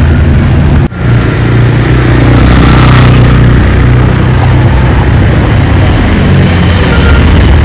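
A supercar's engine running loud and low. The sound cuts out for an instant about a second in, and there is a swell of rushing noise around three seconds in.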